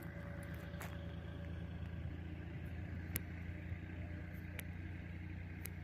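A motor vehicle's engine running steadily at low revs, with a few short sharp clicks, the loudest about three seconds in.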